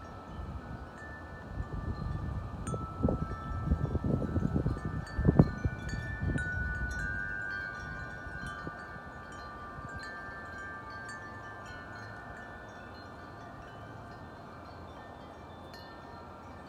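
Metal wind chimes ringing in gusty wind, many overlapping tones struck and left to ring. A gust buffets the microphone with a low rumble from about two to seven seconds in, loudest around the middle, then dies down while the chimes keep ringing.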